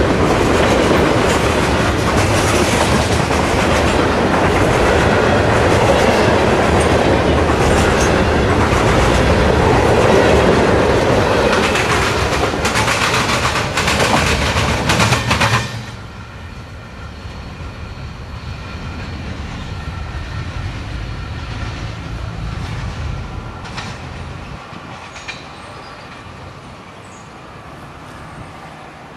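Freight train of open-top hopper cars rolling past close by, wheels clicking and rumbling over the rail joints. About halfway through the sound drops suddenly to a fainter rumble that fades as the end of the train moves away.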